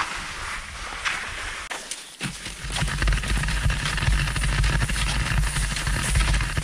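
Skate skis scraping and gliding over slushy snow, with the clicks of pole plants. From about two seconds in, a heavy low rumble, like wind buffeting the microphone, sits under the ski noise.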